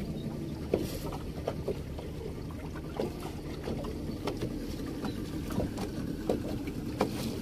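Small boat under way on the water: a steady low rumble with many light, irregular knocks.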